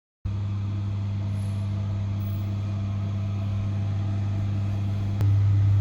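A steady low machine hum that starts abruptly and gets louder about five seconds in.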